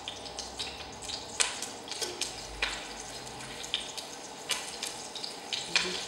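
Floured beef browning in cooking oil in a heavy stainless steel pot, a steady sizzle broken by irregular sharp clicks and pops. The oil is not yet very hot.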